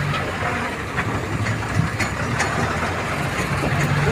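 A motor vehicle's engine running steadily as it drives over a rough gravel track, heard from inside the cab, with scattered light knocks and rattles as it bumps along.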